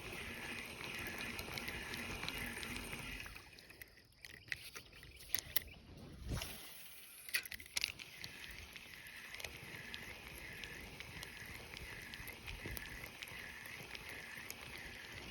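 A high-pitched insect chorus pulsing about twice a second. For a few seconds midway it drops away, and a scatter of sharp clicks and knocks comes through before the chorus returns.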